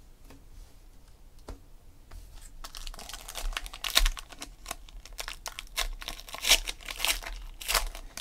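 Wrapper of a 2016 Panini Elite Extra Edition card pack being torn open and crinkled as it is peeled off the cards: a run of sharp crackles and rustles starting about two seconds in.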